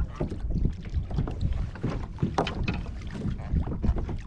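Water slapping irregularly against a fishing kayak's hull, with wind buffeting the microphone as a low rumble.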